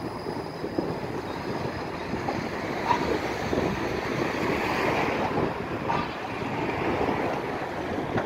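TTC Flexity Outlook streetcar pulling away from the stop and rolling off along the rails, a steady rumble mixed with street traffic, with a couple of short clicks. Wind buffets the microphone.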